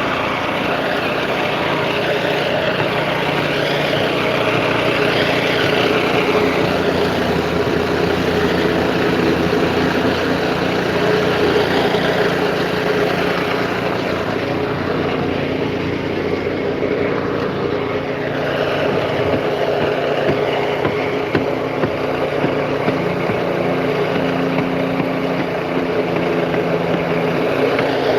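Engine of concrete-pouring machinery running steadily at a constant pitch, with a dense mechanical din over it.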